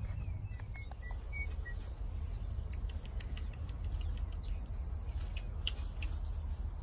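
Wind rumbling on the microphone, with a few short high bird chirps in the first two seconds and scattered light clicks and rustles later.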